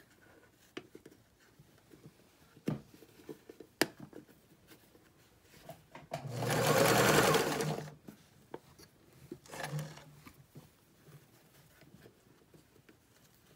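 Electric sewing machine stitching in short runs: a loud run of about a second and a half about halfway through, then a brief, fainter one, as the elastic casing of a fabric mask is sewn down. A couple of sharp clicks come before the first run.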